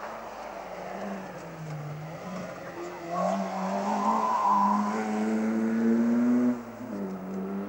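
A race car's engine pulling hard under acceleration, its pitch climbing steadily, then dropping sharply about six and a half seconds in before picking up again.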